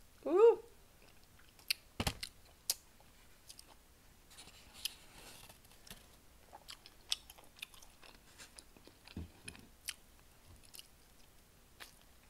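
Close-up chewing and biting of chicken wings: scattered wet mouth clicks and lip smacks, with fingers licked. A short hummed 'mm' just at the start.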